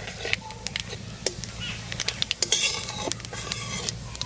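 Whole dried red chillies, bay leaves and cumin seeds frying in hot mustard oil in a metal kadai, sizzling with many sharp crackles, while a metal spatula stirs and scrapes the pan.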